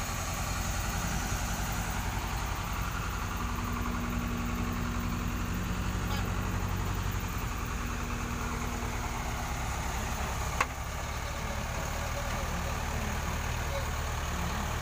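Heavy diesel engine idling steadily, with one sharp knock about two-thirds of the way through.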